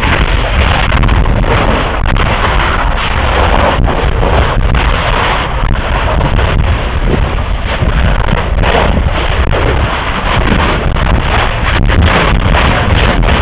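Lava explosions at a lava ocean entry: a continuous loud, deep roar with a few scattered sharp cracks.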